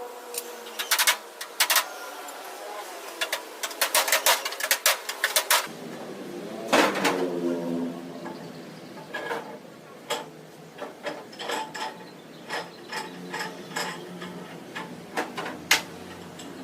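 Hand-tool work on a pickup's steel cargo-bed panels: irregular runs of sharp metallic clicks and knocks, some in quick clusters, with a brief ringing tone about seven seconds in.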